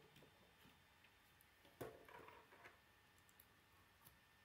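Faint clicks and taps of plastic K'nex pieces being handled and snapped together. The clearest click comes a little under two seconds in, followed by a few smaller ticks, against near silence.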